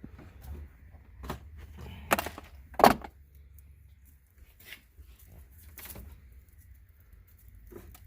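Wire cutters snipping through the car stereo wiring harness: two sharp snips, one just after two seconds in and a louder one about three seconds in, among fainter handling clicks.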